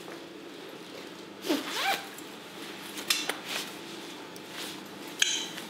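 A padded jacket being unzipped and pulled off: a squeaky sliding sound about a second and a half in, then short sharp clicks and rustling around three and five seconds in, over a steady background hum.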